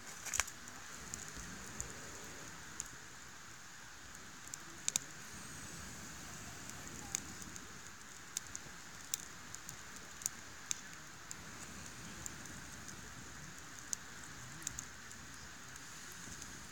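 Campfire of sticks and branches burning: a steady soft hiss with sharp crackling pops and snaps from the wood, about one a second.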